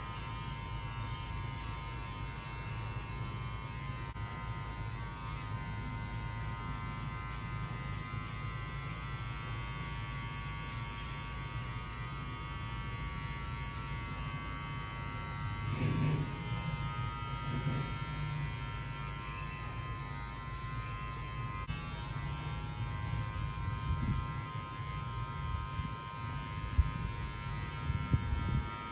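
Electric hair clipper running with a steady buzz as it cuts hair, with a brief louder patch about halfway and a few sharp clicks near the end.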